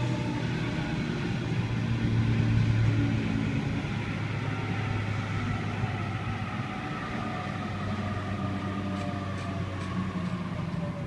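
Sydney Trains Waratah (A-set) electric train slowing into the platform: a low steady hum under an electric motor whine that falls in pitch as it brakes.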